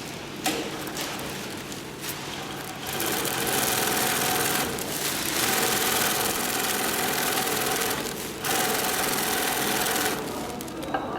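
Dürkopp Adler 72525-101 long-arm zigzag industrial sewing machine running at speed in three runs, with two short stops between them, starting about three seconds in and stopping near the end.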